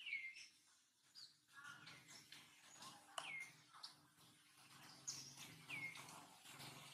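Faint bird chirps from the trees: three short high calls, each sliding down in pitch, spread across a few seconds, with fainter twittering in between.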